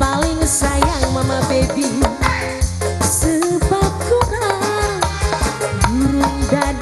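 Live band music: a steady low drum beat under a sliding, ornamented melody line, with light shaker-like percussion.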